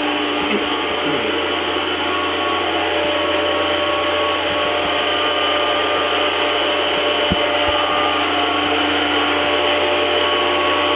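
Tormach CNC mill running with its spindle turning a large cutter, while a high-volume flood coolant pump sprays coolant over the cutter and it splashes and drains through the enclosure. It is a steady whine over a continuous rush of spray.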